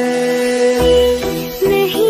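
Background music from a slow romantic song: a long held note, then notes over a soft beat that comes in just under a second in.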